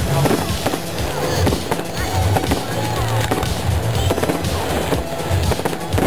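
Fireworks display at full intensity: aerial shells bursting in quick succession, a continuous run of bangs and crackle, with music playing underneath.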